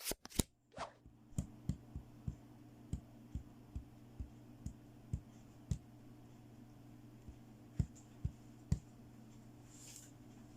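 Sharp, light clicks and taps from a plastic toy playset and its packaging being handled during unboxing, about fifteen of them at uneven intervals over a faint steady hum.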